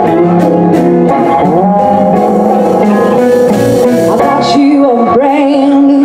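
Live blues band playing, with electric guitars over bass and drums; a woman's singing voice comes in about two-thirds of the way through.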